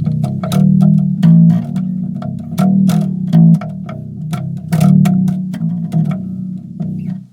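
Electric bass guitar played clean, a run of plucked notes, with the Behringer V-Tone Bass BDI21 switched off so its plain, unprocessed tone is heard. The playing stops just before the end.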